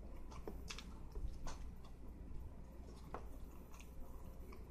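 A person chewing a tuna sandwich with the mouth open, a few soft wet smacks and clicks spread through, over a low steady hum.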